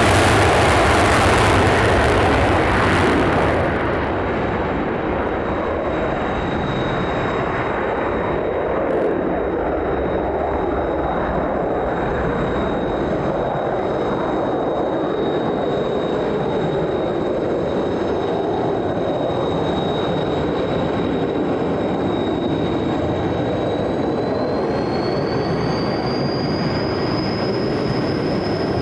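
F-15 Eagle's twin afterburning jet engines at full afterburner on takeoff. The jet noise is loudest for the first few seconds as the aircraft passes, then holds as a steady, slightly softer roar while it climbs away. A thin high whine comes in a few seconds in and rises in pitch near the end.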